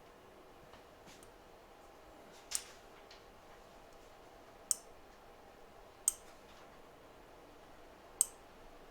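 Four sharp, high clicks, irregularly spaced a second or two apart, from small tools or equipment at a microsoldering bench.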